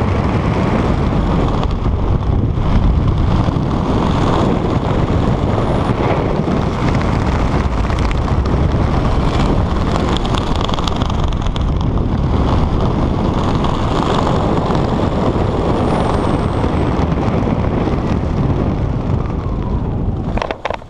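Wind buffeting the camera microphone during a parachute canopy descent, a steady rumbling rush. It dies away near the end as the jumper reaches the ground.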